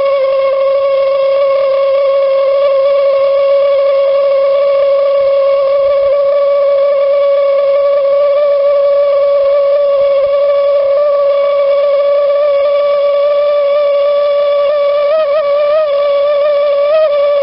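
Toyotomi laser-burner kerosene heater giving off a loud, steam-whistle-like resonance: one steady held tone with overtones, wavering a little near the end. The resonance is the sign of the burner running short of combustion air.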